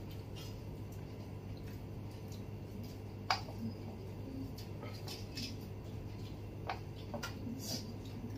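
Scattered light clinks and taps of stainless-steel plates as people eat by hand, with one sharper clink about three seconds in, over a steady low hum.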